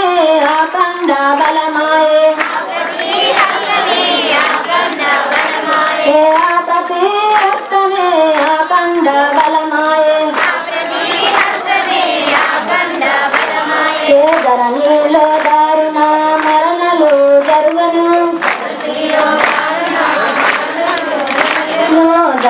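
A group of women singing a devotional song, one woman leading on a microphone with others joining in, over steady rhythmic hand clapping.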